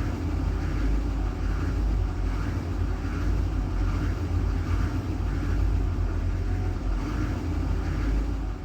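2006 GMC 6.6-litre Duramax V8 diesel cranking steadily on the starter without catching. Air is getting into the fuel system through a leaking fuel primer seal.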